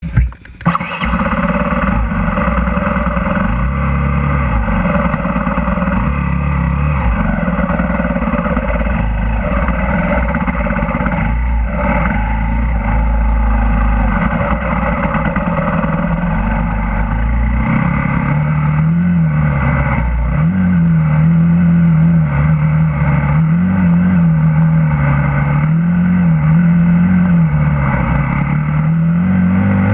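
Husqvarna TE 250 enduro motorcycle engine running under a rider, its pitch rising and falling again and again with the throttle. A heavy low rumble lies under it through the first half.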